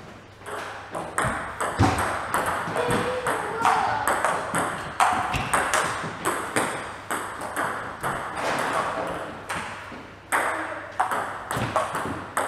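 Table tennis ball being hit back and forth in a rally, a quick irregular run of sharp clicks as the celluloid-plastic ball strikes bats and the table, each with a short echo.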